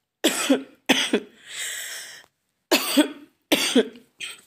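A woman coughing: two pairs of short, harsh coughs with a breathy intake of breath between them and a small last cough near the end. She has a sore throat.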